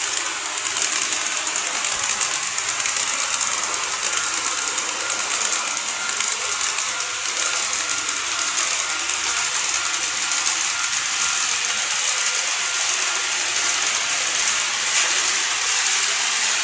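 KATO 185 series N-gauge model trains running along the track: a steady, high-pitched whirring hiss of wheels and motors with fine, rapid clicking.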